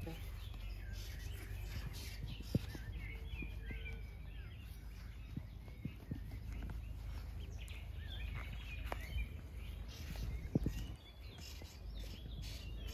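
Small birds chirping and twittering over a steady low outdoor rumble, with a couple of short sharp knocks.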